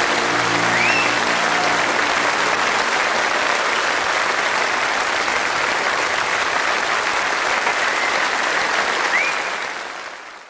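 Large theatre audience applauding, with the band's last held notes dying away in the first few seconds. The applause fades out near the end.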